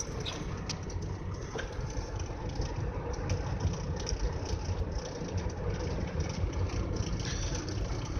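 Volvo car driving slowly, heard from inside the cabin: steady low engine and road rumble with a few faint light ticks and rattles.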